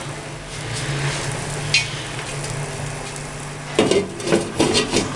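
Curry simmering and sizzling in a nonstick frying pan over a gas burner, a steady hiss of bubbling liquid. A sharp click comes about two seconds in, and a run of clattering knocks follows near the end.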